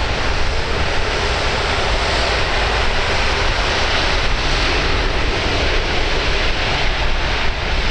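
Jet engines of an Airbus A380 airliner rolling along the runway: a loud, steady rumble and roar without breaks.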